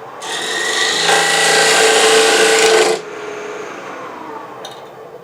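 Thin parting tool cutting into plexiglass and a plywood pressure plate spinning on a wood lathe at about 1600 rpm. A loud scraping cut with a steady whine builds over the first second and stops suddenly about three seconds in, as the part-off nears its end. The lathe then keeps running quietly.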